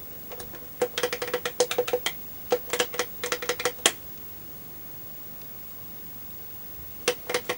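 Rapid plastic clicking of a Quickshot Maverick 3 Sega MegaDrive joypad's buttons being pressed over and over while testing a fire button that isn't registering. Two runs of quick clicks of about a second each, a pause of about three seconds, then a few more clicks near the end.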